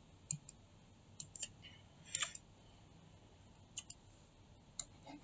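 Faint, irregular clicks of a computer mouse, a dozen or so spread out, some in quick pairs.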